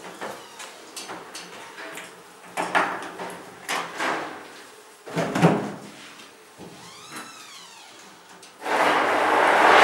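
Wooden honey frames knocking and scraping against the metal wire cage of a stainless-steel radial honey extractor as they are slotted in, a few separate clunks. Near the end a loud steady whirring starts up, the extractor's motor beginning to spin the loaded cage.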